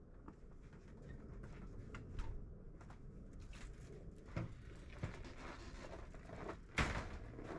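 Scattered small clicks, knocks and rustles of hands working with clips and a string of Christmas lights, with one sharper knock about seven seconds in.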